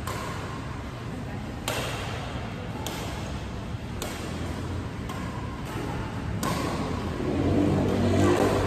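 Badminton racket strikes on a shuttlecock: four sharp hits, three about a second apart and a fourth after a longer pause.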